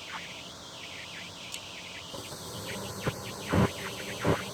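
Goodman gas furnace running just after firing up: a steady hiss and whir from the burners and the newly replaced inducer (exhaust) fan motor, running smoothly. A few short thumps come in the second half.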